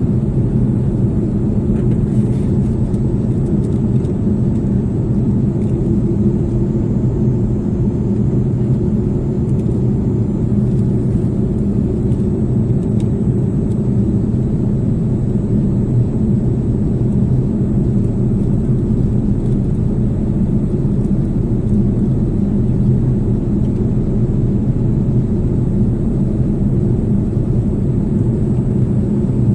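Steady cabin noise of an airliner in flight: an even, unbroken low rumble of the engines and rushing air heard from inside the cabin.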